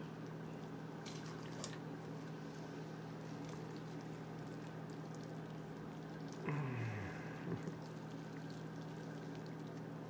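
Wet, dripping sounds of bean liquid as a slow-cooked pork shoulder is lifted out of a cast iron dutch oven, over a steady low hum. A few faint clicks come early on, and a short falling tone about six and a half seconds in.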